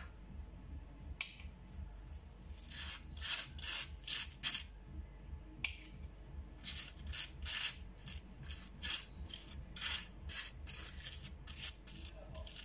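A table knife spreading butter over a slice of bread, making a dry, rasping scrape with each stroke. The strokes are irregular and come more thickly in the second half.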